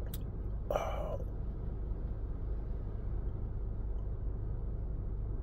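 Steady low background rumble, with a faint click at the start and a short breath about a second in.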